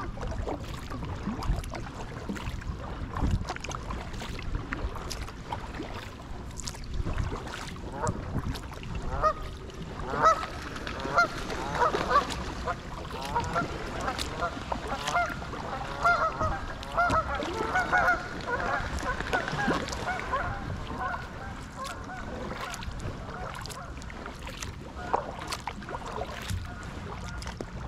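Geese honking, a dense flurry of short calls from about nine seconds in until about twenty seconds in. Underneath are kayak paddle splashes and drips, with low wind rumble on the microphone.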